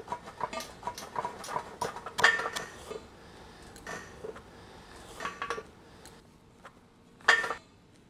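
Steel locking pins clinking and tapping against the steel frame of a yoke rack as they are slid into its holes: a string of small metallic clicks, thick at first and then sparser, with one louder ringing clink about seven seconds in.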